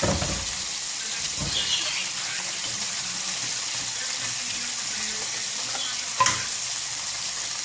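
Food sizzling in a frying pan on a gas stove, a steady hiss, with a knock at the start and a sharper, louder knock about six seconds in.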